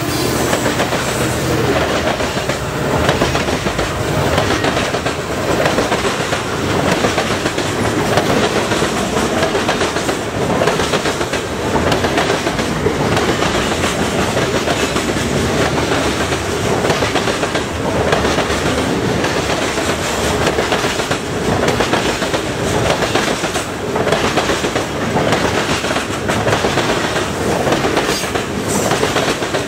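Freight train cars, mostly covered grain hoppers and tank cars, rolling past close at speed, with a steady run of wheel clacks over rail joints.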